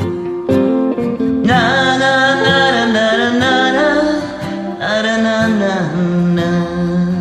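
A woman singing two long wordless notes with vibrato over a plucked guitar backing track, in a karaoke recording.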